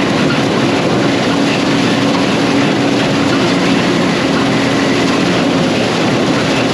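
Gleaner R52 combine running steadily while harvesting soybeans: a loud, dense, even machine noise with a faint constant hum.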